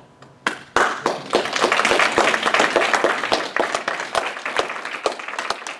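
Audience applauding. It starts about half a second in, builds quickly into dense clapping, then thins out toward the end.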